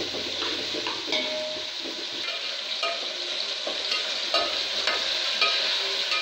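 Sliced onions sizzling in hot oil in a pressure cooker and a pan, stirred with a metal spatula that scrapes and clinks against the pan now and then over the steady frying hiss.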